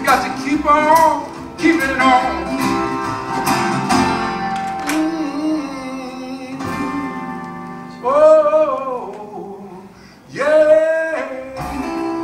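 Recorded song played over Diesis Audio open baffle horn loudspeakers: plucked acoustic guitar notes, with a voice singing two long held phrases in the second half.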